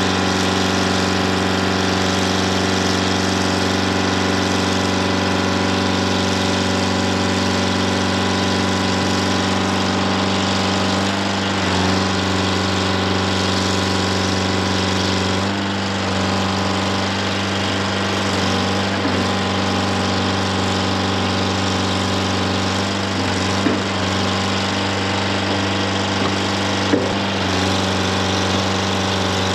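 Detroit Diesel 4-71 two-stroke diesel of a Dynahoe 200-4 backhoe-loader running steadily while the backhoe digs out a stump, its note shifting slightly about 12 and 16 seconds in. Two short sharp cracks come near the end.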